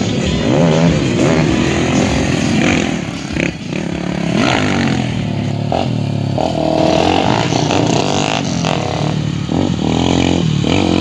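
Several motorcycle engines revving up and down, overlapping, as the bikes pull away and pass by, their pitch rising and falling.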